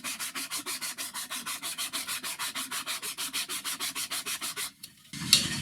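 Wooden bandsaw box rubbed back and forth by hand on sandpaper glued to a flat melamine board, flattening and smooth-sanding the box's bottom. It makes a fast, even scratching rhythm of several strokes a second that stops shortly before the end.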